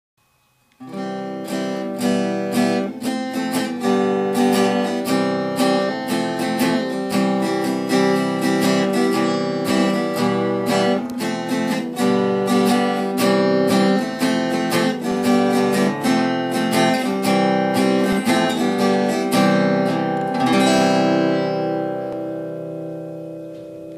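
Intro music: a strummed acoustic guitar, starting about a second in and ending on a final chord that rings out and fades over the last few seconds.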